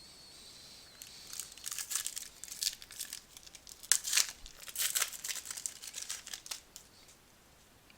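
A foil trading-card pack wrapper being torn open and crinkled: a quick, irregular run of sharp crackles that starts about a second in and stops over a second before the end.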